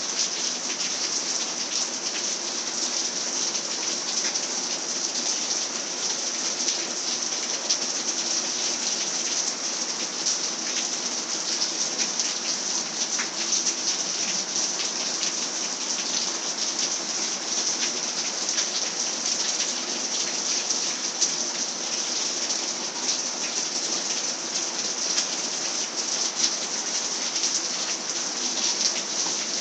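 Heavy rain pouring steadily, a constant hiss with many individual drops ticking through it.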